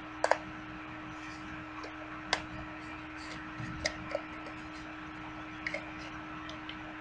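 Scattered sharp plastic clicks and taps from a toy R/C car's handheld transmitter being handled with its battery compartment open, about six in all, the first a quick double click.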